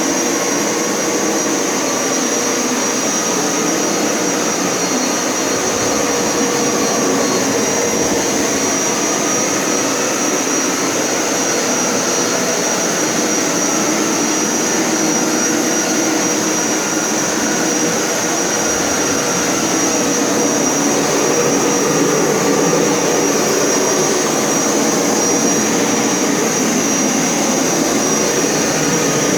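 Hoover Power Scrub Elite carpet cleaner running steadily, its suction motor drawing rinse water up out of the carpet, with a faint whine that wavers slightly in pitch.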